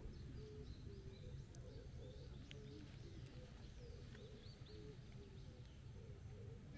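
Faint outdoor ambience: small birds chirping here and there over a low, steady rumble.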